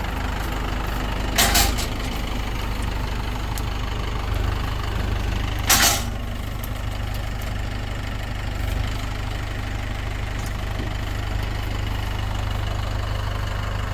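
Tractor engine running steadily, with two brief, louder noisy sounds over it, about a second and a half in and again near six seconds.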